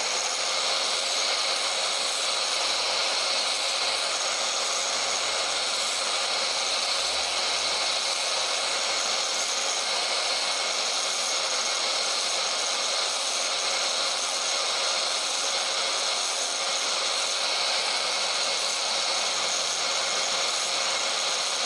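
Small electric grinder running steadily while a washer's side is ground down to make it smaller, with a constant grinding hiss; it cuts off suddenly at the end.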